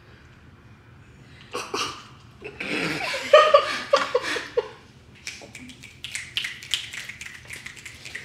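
Stifled giggling and low voices during a silent game, then a run of light, irregular clicks or taps, several a second, over the last three seconds.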